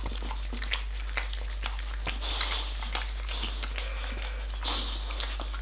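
Boxer dog licking yoghurt off a person's hand: wet slurping and lip-smacking, an irregular string of short smacks and clicks from the tongue and jowls.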